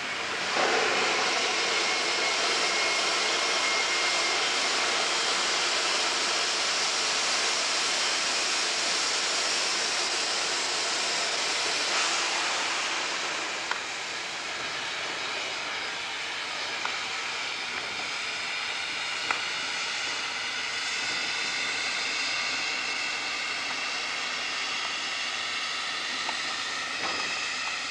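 Steam locomotive blowing steam from its open cylinder drain cocks as it moves slowly off shed: a loud, steady hiss that eases about halfway through and carries on more softly, with a few light clicks.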